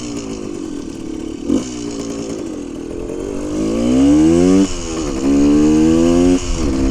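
1974 Honda MT250 Elsinore's two-stroke single-cylinder engine pulling away under throttle. Its pitch climbs, then drops sharply at a gear change, and drops again at a second change near the end. It runs louder in the second half.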